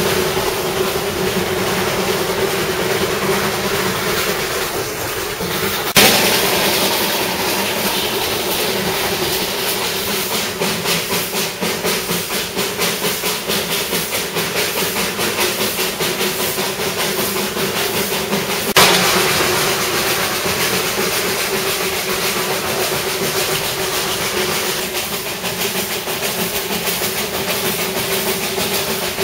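Narrow-gauge steam locomotive working along the line: a steady hiss of escaping steam with a regular pulsing exhaust beat and wheels running on the rails. Twice the hiss jumps suddenly louder and then settles back.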